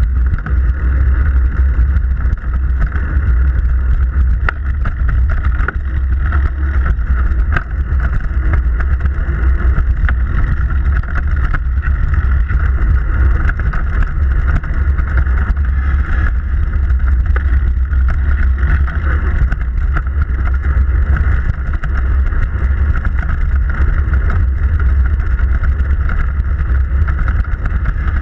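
Moving bicycle heard from a camera mounted low on the frame by the rear derailleur: a steady low rumble of wind and road noise with a hiss of the tyres on the pavement, and a few faint clicks.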